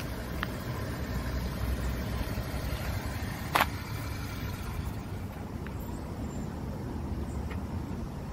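The 660 cc petrol engine of a 1994 Suzuki Carry 4x4 mini truck running at low speed as the truck creeps forward, a steady low rumble. One sharp knock sounds about three and a half seconds in.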